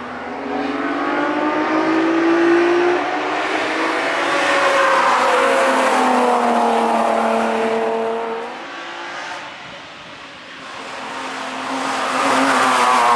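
Cars driven hard past the trackside, including BMW E46 coupés, their engines running at high revs. The engine note climbs, then falls away as a car goes by. The sound dips about nine seconds in before the next car comes up loud near the end.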